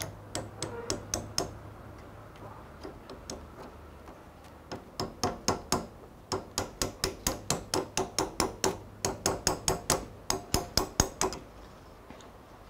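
Claw hammer tapping a steel wedge driven between a drill press spindle and its chuck, to knock the chuck off the spindle. A few spaced taps at first, then a fast even run of light taps, about four a second, from around five seconds in until shortly before the end.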